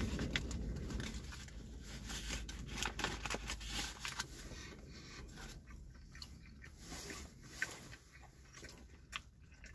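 A bite into a crispy fried chicken sandwich, then close-up chewing with fine crunching, busiest in the first few seconds and softer after.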